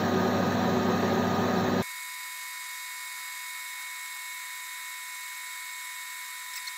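Metal lathe running, its tool skimming the face of an aluminium block. Just under two seconds in, the full, low running sound drops away abruptly, leaving a steady high-pitched whine.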